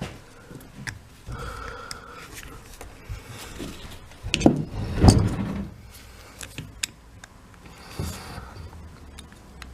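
Metal tools handled at a workbench while setting up to punch out the impact wrench's trigger roll pin: scattered clinks, knocks and a brief scrape, with the heaviest knocks about halfway through.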